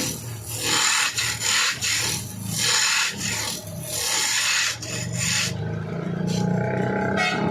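Saw cutting through wood with a harsh rasping sound that comes in quick repeated bursts. After about five and a half seconds the cutting eases off and a lower, steadier machine hum carries on, with one more short rasp near the end.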